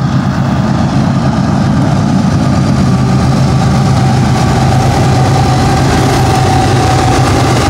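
Three BNSF GE diesel-electric locomotives (two ES44C4s and an ES44AC) leading a stack train, their V12 diesel engines running with a loud, steady low drone as they approach and pass close by. A steady higher whine above the drone grows stronger in the second half.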